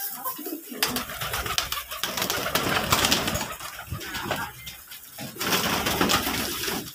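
Domestic pigeons cooing in a flock of pigeons and chickens feeding together, with many quick clicks and rustles as the birds peck at grain in straw.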